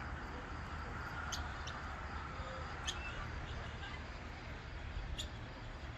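Birds giving a few short, high chirps, about four scattered through, over a steady low background rumble.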